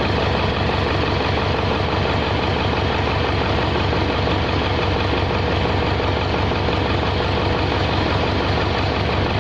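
Caterpillar 3204 four-cylinder diesel engine running steadily at idle, with an even low pulse and no change in speed.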